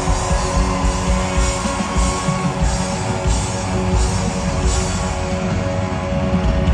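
Rock band playing live through a concert sound system, guitars over a drum kit keeping a steady beat.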